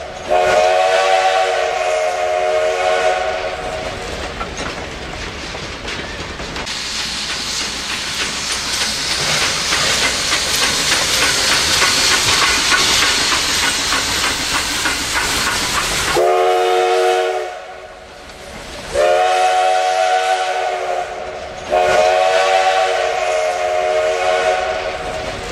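A steam locomotive's chime whistle blows one long blast at the start, then a short blast and two long ones in the last ten seconds. Between the blasts, passenger coaches roll past with a steady noise and the rhythmic clickety-clack of wheels over rail joints.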